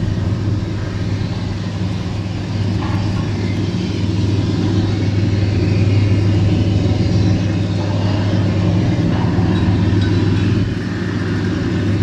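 Customs patrol boat's engines running steadily as a low, even hum under a constant hiss, swelling slightly in the middle and easing a little about ten seconds in.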